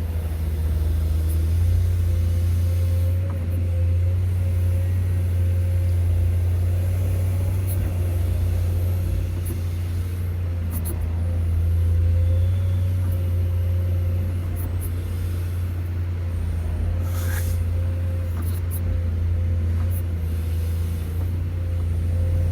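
Excavator diesel engine running steadily: a continuous deep drone with a steady faint whine above it.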